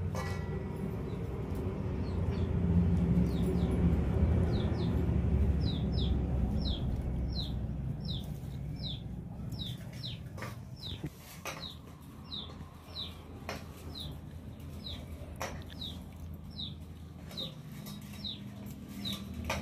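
A bird giving short, high, falling chirps over and over, roughly one to two a second, over a low rumble that is loudest in the first half; a few sharp clicks come in the second half.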